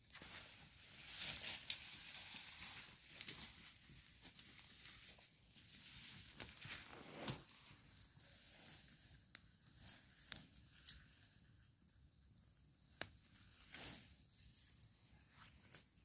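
Campfire of dry branches and twigs crackling, with irregular sharp pops and snaps over a faint hiss.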